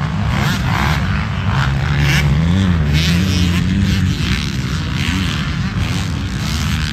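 Several motocross dirt bikes racing on the track, their engines revving up and down and overlapping.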